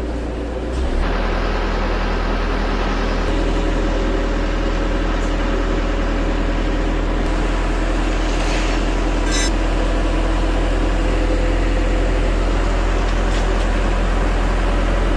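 Isuzu Elf crane truck's engine running steadily, with a steady whine over its low drone; it gets slightly louder about a second in. A brief click about nine seconds in.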